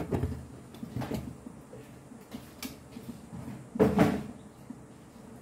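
A few dull knocks and thumps, the loudest a close pair about four seconds in.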